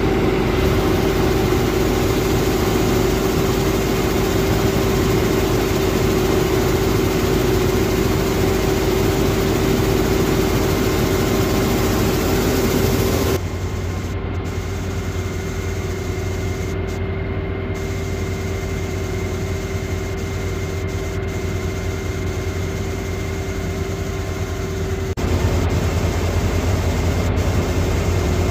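Claas Dominator 48S combine harvester running steadily, its engine and threshing machinery making a constant mechanical drone while harvesting wheat. About halfway through the sound changes abruptly to a quieter, deeper hum, and near the end it turns loud again.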